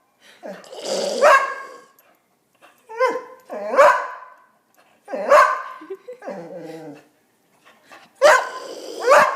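English Springer Spaniel barking in reply to a person's weird made-up vocal sounds: sharp barks in bursts about every two seconds, with a lower, falling, drawn-out voice sound between them about two-thirds of the way through.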